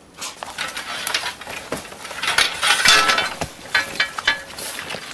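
A captured whitetail deer moving about inside a netted, metal-framed cage trap, rattling and clinking the frame and mesh in an irregular clatter that is busiest about halfway through, with scattered sharp knocks after.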